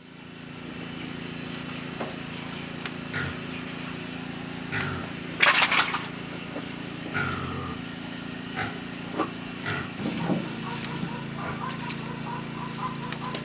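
Outdoor rural ambience: a steady low hum with short bird calls, and a brief loud noise about five and a half seconds in. Near the end, water sloshing in a plastic basin as hands soak glass noodles.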